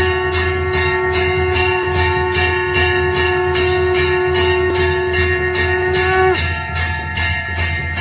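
Temple bell rung rapidly and continuously, about three strikes a second, its ringing tones overlapping. One of the held ringing tones cuts off abruptly about six seconds in, over a steady low hum.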